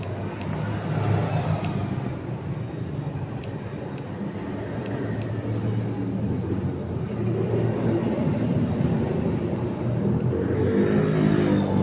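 Motor vehicle engine running, growing louder toward the end, where its pitch shifts as it goes by.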